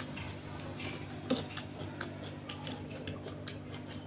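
Close-miked eating sounds: wet mouth clicks and chewing of instant noodles, with a metal fork stirring and lifting noodles from the plate. Irregular small clicks throughout, one stronger smack about a second and a half in.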